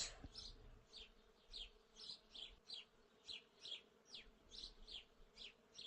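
Faint series of short, high-pitched falling chirps, about two or three a second.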